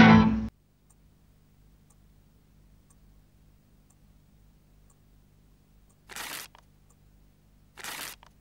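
Swing-style music with fiddle cuts off abruptly about half a second in, leaving a faint tick about once a second over a low hum. Near the end, paper is rustled twice in the hands, two short rustles.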